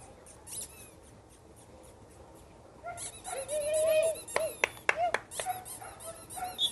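German Shepherd puppies whining and yelping as they play, starting about three seconds in with one drawn-out whine and then several short sharp squeaks, over high chirping of birds.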